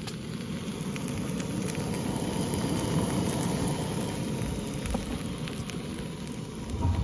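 Food sizzling in a hot frying pan: a steady crackling hiss that swells a little and eases off, ending in a sharp thump.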